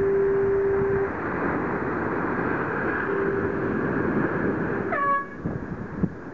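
Race committee's finishing horn sounding two long steady blasts as a yacht crosses the finish line: the first ends about a second in, the second runs from about three to five seconds in, followed by a short rising toot. Loud wind noise on the microphone runs underneath.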